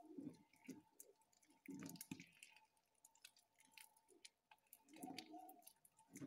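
Faint wet squelching and sticky clicks of blue glue slime being stretched and kneaded by hand, in short soft bursts.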